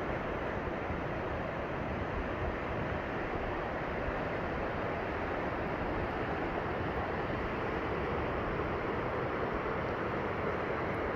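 Steady rush of water, an even noise with no separate splashes or breaks.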